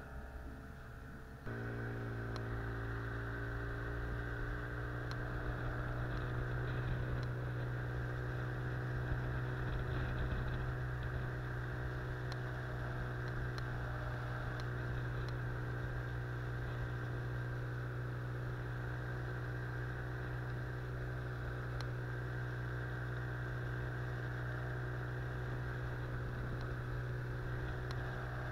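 Outboard motor running steadily, driving an inflatable boat upriver; the drone jumps louder about a second and a half in, then holds an even pitch.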